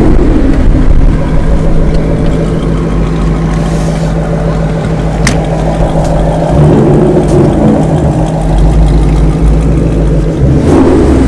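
Ford Mustang's engine and exhaust heard from inside the cabin while the car rolls along: a steady, loud low rumble that swells a little about two-thirds of the way through. There is a single sharp click about halfway.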